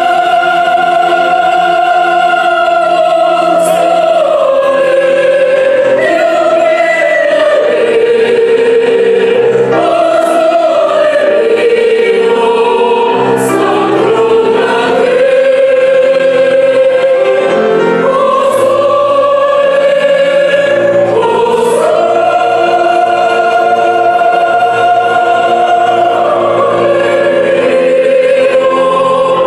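Mixed choir of young voices singing, holding long notes in a slow melody that steps up and down.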